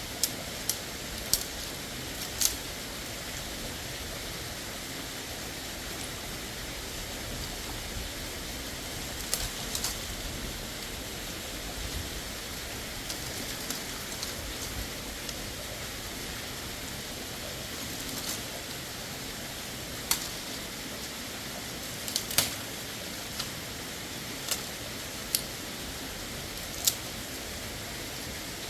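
Steady rush of running water, with sharp clicks and knocks every few seconds.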